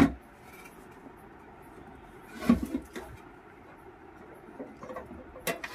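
Knocks from inverter welding machines being handled on a counter: a sharp knock at the start, a duller thump about two and a half seconds in, and a few light clicks near the end.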